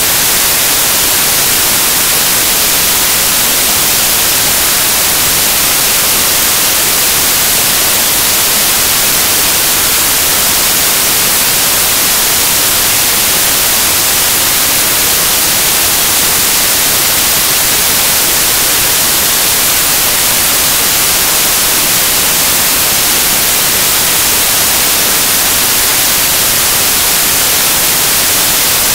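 Loud, steady static hiss, brightest in the high end, with nothing else over it. It cuts in abruptly after a brief dropout, in place of the soundtrack: an audio signal fault.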